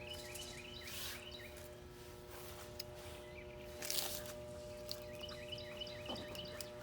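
Goodman condenser's compressor buzzing with a steady electrical hum as it tries and fails to start, the 'death buzz' of a compressor whose run capacitor has failed. Birds chirp in the background.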